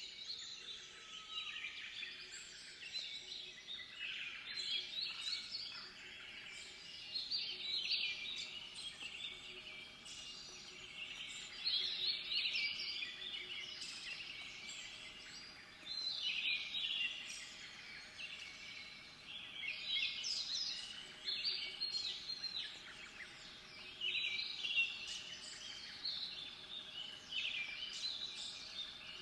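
Small songbirds chirping and calling in a dense, overlapping chatter of quick high notes that rises and falls in loudness every few seconds.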